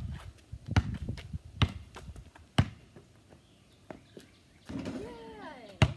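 Basketball bouncing on hard ground: four sharp bounces a little under a second apart, then a pause while the ball is shot, and one more hard bounce near the end. A short wavering call is heard just before that last bounce.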